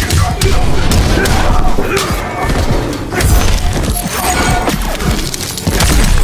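Loud action music with repeated punch and thud sound effects of a fistfight.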